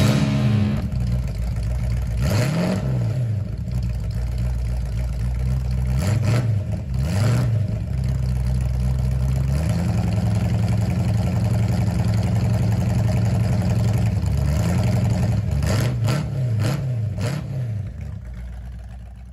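Car engine running with a low, steady rumble and revved several times, the pitch rising and falling with each rev. The sound fades out near the end.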